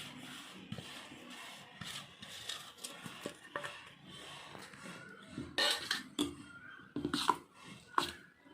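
Spoon and vessel clinking and scraping as a flour mixture is stirred in a bowl, with a few sharper knocks in the second half.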